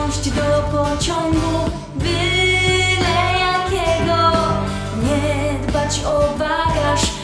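Pop song with a female voice singing over keyboards, guitar, drums and bass, the sung line carrying no clear words. The music dips briefly about two seconds in.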